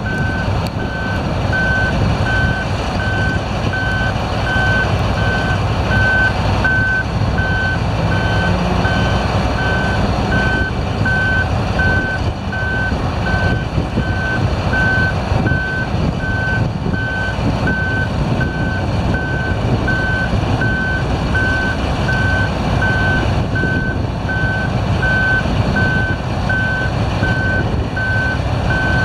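Heavy mine-site vehicle's warning alarm beeping steadily about once a second, over the continuous running of a large diesel engine, as the hydraulic deck of a 160-tonne hinge-hitch low loader is lowered.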